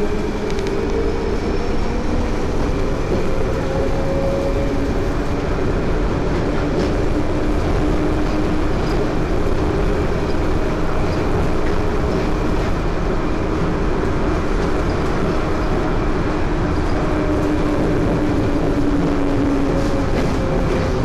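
Inside a Crystal Mover rubber-tyred automated light-rail car running along the guideway: a steady rumble and tyre roar with an electric motor whine that rises in pitch over the first few seconds, then holds steady.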